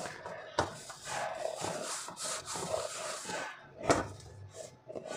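Hands kneading a crumbly flour dough in a stainless steel platter: an uneven rubbing and scraping of dough against the metal, with two sharper knocks, the louder about four seconds in.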